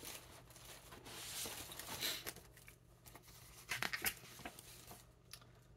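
Paper and packaging rustling as items are handled and lifted out of a box. The loudest rustles come about a second and a half in and again around four seconds in, over a faint steady low hum.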